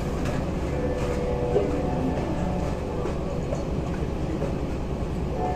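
Steady low rumble of the cruise ship Royal Wing's engines and hull heard aboard while under way, with a faint murmur of voices underneath.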